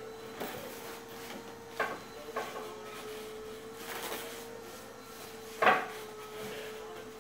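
Wooden horse and leather saddle knocking and rubbing as a child climbs on and shifts her weight: a few sharp knocks, the loudest about three-quarters of the way through, over a steady faint hum.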